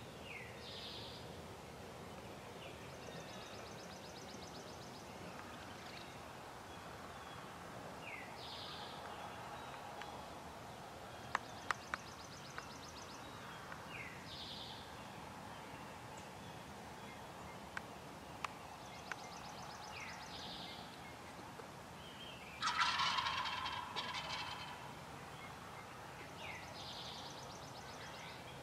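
A wild turkey gobbler gobbles once, loudly, about two-thirds of the way through, a rattling call of about two seconds. A bird repeats a short high song every few seconds throughout, and a few sharp clicks come near the middle.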